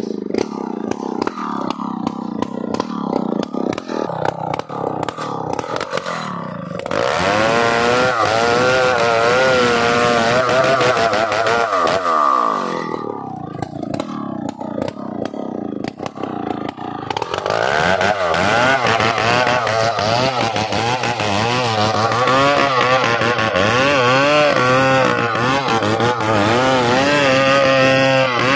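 Two-stroke chainsaw cutting into a large tree trunk, its engine pitch rising and falling under load. It runs louder and harder from about seven seconds in, eases off for a few seconds in the middle, then bears down again for the rest.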